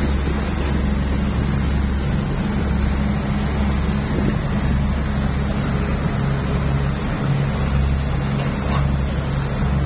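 Boat engine running steadily with a low, even hum, over the wash of water and some wind.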